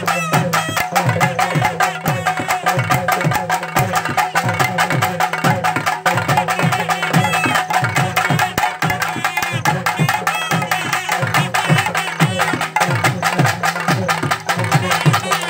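Festival folk band: barrel drums beaten in a fast, unbroken rhythm, with a trumpet-like brass horn playing a wavering melody over them.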